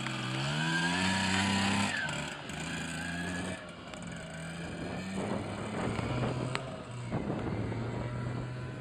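Yamaha FS1-E's 49cc two-stroke single-cylinder engine running on its first run after a rebuild. The revs rise over the first second or so, hold briefly, then drop back and wander up and down at lower revs.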